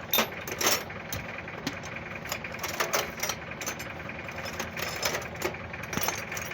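An engine running steadily, with irregular sharp metallic clicks and knocks over it.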